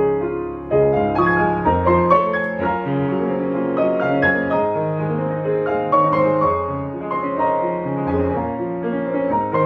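Piano four hands: two pianists at one piano play a gentle piece, with bass notes and chords held under a flowing melody and a new chord or phrase struck about every second.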